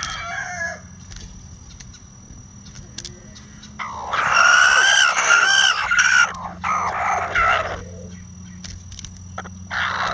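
Bantam rooster crowing once, a loud call of about four seconds starting about four seconds in; shorter chicken calls sound at the start and near the end.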